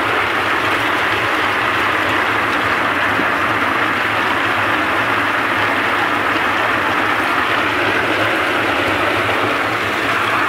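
Electric walnut hulling machine running: a steady, dense rattle of walnuts churning against the grated drum as water sprays in, over a low steady hum from its motor and gear reducer.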